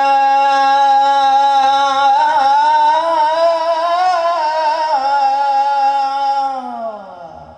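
A man singing one long drawn-out "Ya" into a microphone, amplified through a sound system. The held note wavers in ornaments through the middle and glides down and fades near the end.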